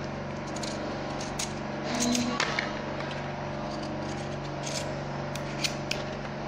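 Knife blade shaving the green skin off a raw pumpkin wedge, heard as a few short, sharp scrapes, the strongest about two seconds in. A steady low hum runs underneath.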